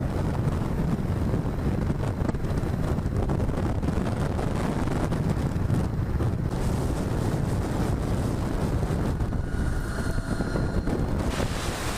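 Wind rushing over the microphone and road noise on a moving motorcycle: a steady, heavy low rumble that starts abruptly.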